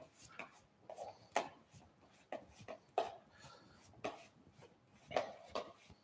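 Flexible rubber spatula (Maryse) scraping and stirring stiff almond cream of softened butter, sugar and almond powder around a bowl, in soft repeated strokes about two a second.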